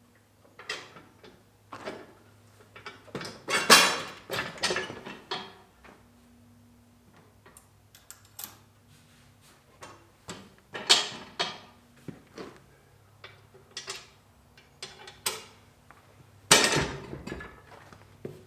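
Irregular metallic clanks, knocks and rattles of farm equipment being handled, as when a hay rake is hitched to a tractor, over a faint steady low hum. The loudest clatter comes about four seconds in and again near the end.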